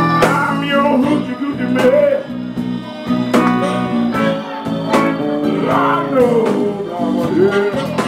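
A live blues band playing: electric guitar with bending notes, saxophone and drums.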